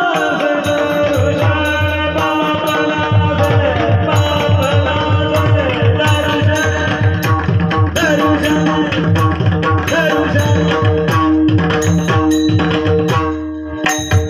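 Kirtan accompaniment: a hand drum playing a fast, steady rhythm under held, sustained notes, with small cymbals ticking regularly. The drumming thins out briefly near the end.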